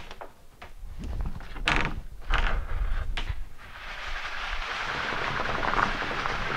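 Plywood sheet being handled onto a steel conveyor table, with several sharp knocks and scrapes. About four seconds in a steady mechanical rushing noise sets in and keeps going.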